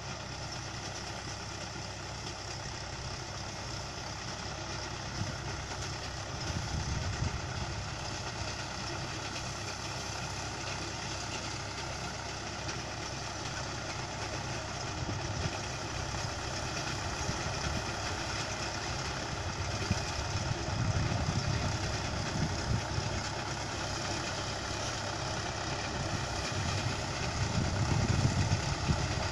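Mahindra tractor with a mounted reaper running steadily while cutting the standing crop. Its engine grows louder toward the end as it comes closer.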